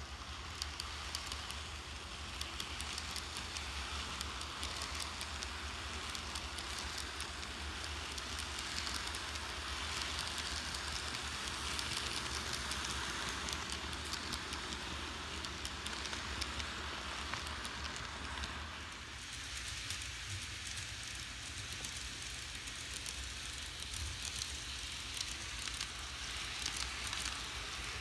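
N-gauge model train (Kato's JR Kyushu 787 series) running on layout track: a steady crackling rattle of wheels on the rails, full of small clicks, a little louder near the middle as the cars pass close.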